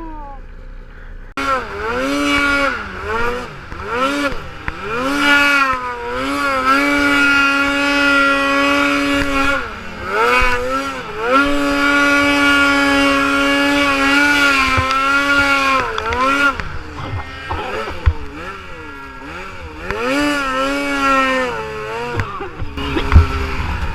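Snowmobile engine revving up and down in repeated swells, then held at high revs twice for a few seconds each, dropping back to a lower, uneven note near the end.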